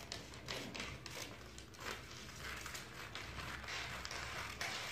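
Scissors cutting through a paper sewing pattern: several short snips in the first two seconds, then a longer stretch of cutting and paper rustling.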